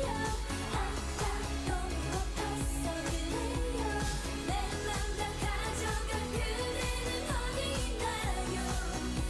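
Dance-pop song with female group vocals over a heavy steady beat, performed live on stage.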